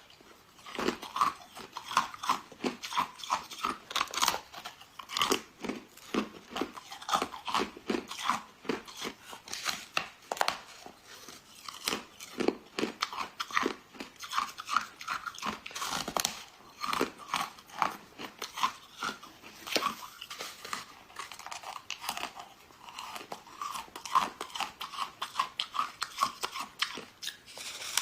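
Close-up crunching and chewing of frozen snow foam, crisp bites and crunches following one another several times a second.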